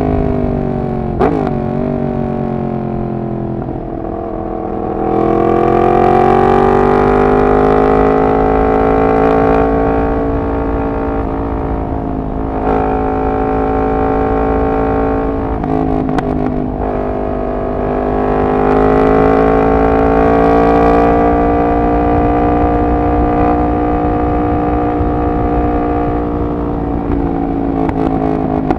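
Yamaha MT-10's crossplane inline-four with a decat exhaust, heard from onboard while riding. The engine note falls as the throttle is rolled off over the first few seconds. It rises smoothly when the throttle opens about five seconds in, eases off, and builds again around eighteen seconds before dropping toward the end. There are a few short sharp cracks, about a second in and around sixteen seconds.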